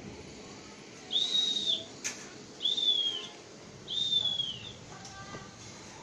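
Three short, high whistled calls about a second and a half apart, each rising, holding and falling in pitch, with a single sharp click about two seconds in.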